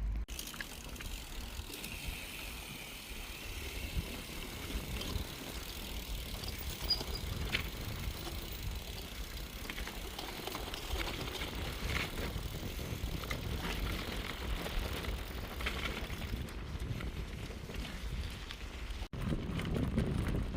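Bicycle being ridden, heard from the bike itself: tyres rolling and the bike rattling, with low wind rumble on the phone's microphone and a few sharp clicks. There is a brief break in the sound about a second before the end.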